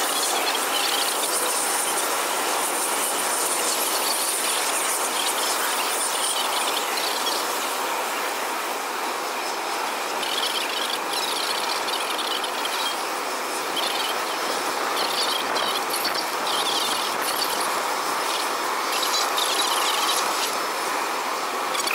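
Airbus A380 jet engines running with a steady rushing noise. Faint high chirping comes and goes over the second half.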